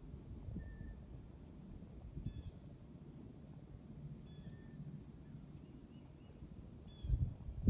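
Steady high-pitched trill of crickets in the grass, with wind rumbling on the microphone, heavier near the end, and a few short bird chirps.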